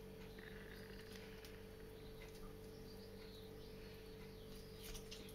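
Near silence: room tone with a steady low electrical hum and a few faint small ticks.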